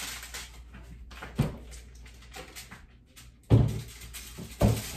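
Freezer door and a bowl being handled: a light knock about a second and a half in, then two heavy thumps near the end as the foil-covered bowl goes into the freezer.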